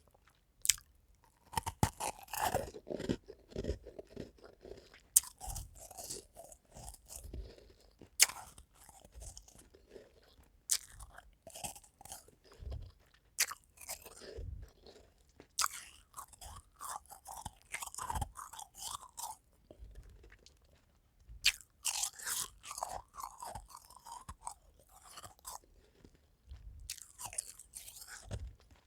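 Someone biting into and chewing frosty half-moon ice cubes: a sharp crunch every few seconds, each followed by a run of grinding crunches as the ice is chewed.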